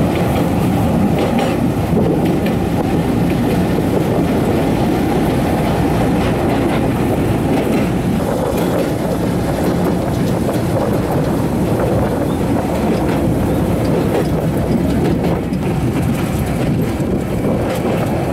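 Open-air sightseeing rail cart of the Takachiho Amaterasu Railway running along the track, a steady noise of wheels on the rails.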